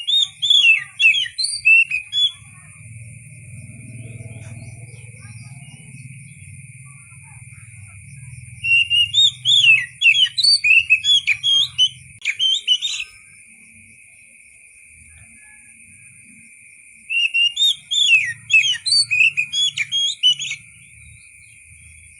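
Oriental magpie-robin (kacer) singing: three bursts of quick, varied whistled notes, each a few seconds long, separated by pauses of several seconds. A steady high-pitched tone runs underneath.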